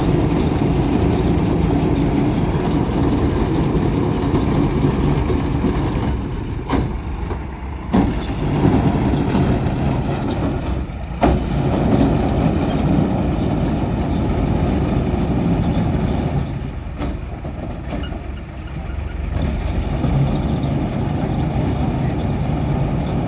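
Diesel engine of heavy machinery running steadily, with a few sharp knocks partway through.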